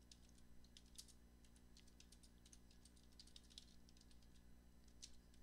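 Faint computer keyboard typing: a run of quick, irregular keystrokes as shell commands are entered.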